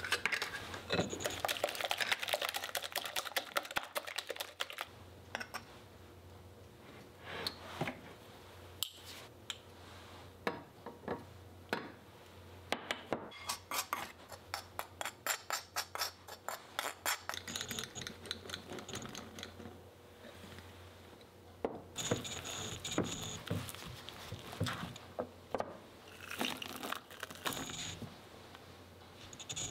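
Cake batter being whisked and stirred in a glass mixing bowl: the utensil clinks and scrapes against the glass in bursts of quick clicks, with a steady run of about four taps a second in the middle.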